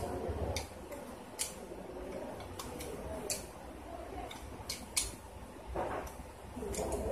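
Irregular sharp metallic clicks, about eight of them, as a tool works the loose second nut off a bicycle pedal's spindle.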